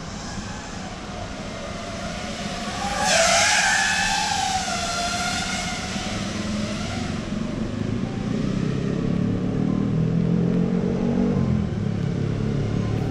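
5-inch FPV quadcopter on Emax Eco 2207 2400Kv motors with Gemfan three-blade props, flying. Its propeller whine swells loud about three seconds in as it passes close, the pitch wavering up and down with the throttle, then settles into a lower, changing hum.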